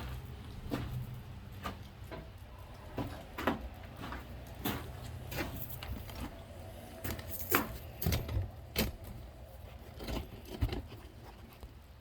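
Irregular clicks, knocks and light rattles of a camera and its mount being handled and repositioned. A low hum fades out in the first second or so.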